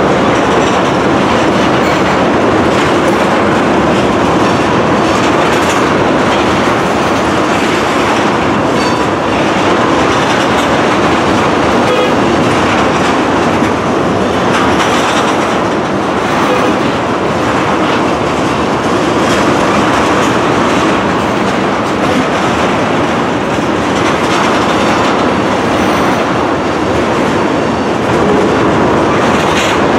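Loaded freight train of tank cars rolling past at close range, a steady loud rumble with the wheels clacking over the rail joints.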